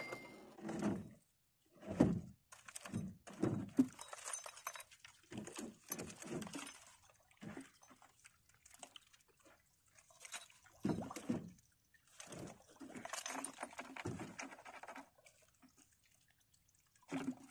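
Irregular knocks, rattles and rustling from a wire-framed net crab trap being handled as crabs are worked out of it, with short quiet gaps between.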